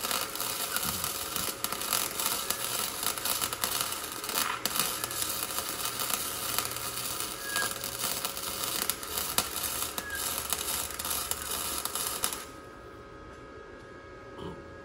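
Wire-feed welder crackling steadily as it welds the steel sheet metal of a car's engine bay, stopping about twelve seconds in. A faint steady hum remains after.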